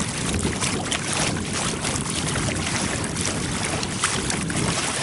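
Steady wind noise on the microphone, with water lapping against the hull of a sit-on fishing kayak.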